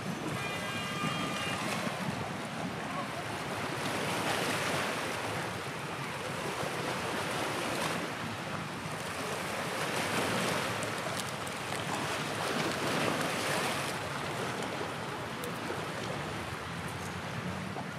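Sea waves washing against the shore with wind on the microphone, a steady rushing that swells and eases every few seconds. A brief high-pitched call is heard in the first second or so.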